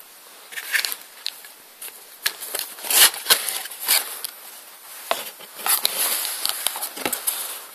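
Cardboard box and packaging being handled during an unboxing: irregular rustling, with sharp clicks and taps.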